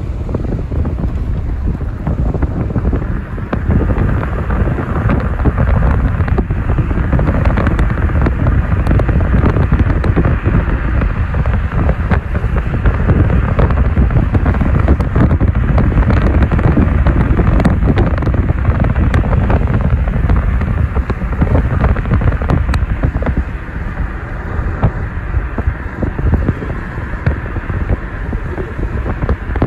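Wind blowing across the microphone, with the road noise of a moving vehicle: a loud, steady rush that eases slightly near the end.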